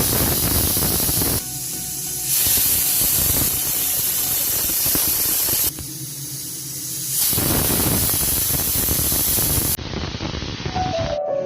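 Pressure cooker whistle releasing steam as a loud hiss, the cooker at full pressure. It comes in several abruptly cut stretches of louder and softer hissing.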